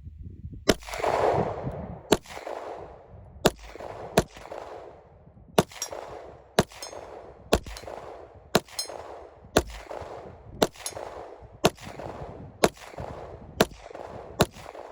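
Glock 19 9mm pistol fired in slow, aimed succession: about fourteen sharp shots, roughly one a second.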